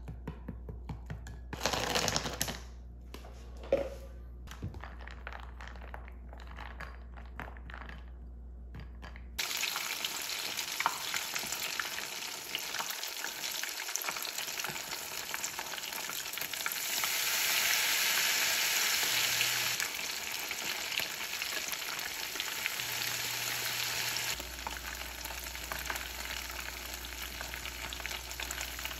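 Wooden chopsticks stirring a flour batter in a glass bowl, with light clicks and taps. About nine seconds in, this gives way to battered shrimp deep-frying in hot oil in a pan, a steady sizzle that grows louder for a few seconds around the middle.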